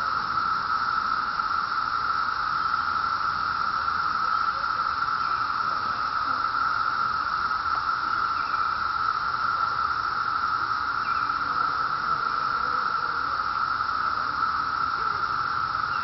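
Massed chorus of 17-year periodical cicadas, a steady unbroken drone in the treetops that includes the rarer species Magicicada septendecula.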